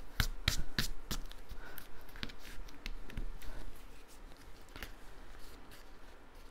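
Cardstock paper pieces being pressed and handled on a tabletop: several sharp paper taps and rustles in the first second, then a few scattered lighter handling sounds.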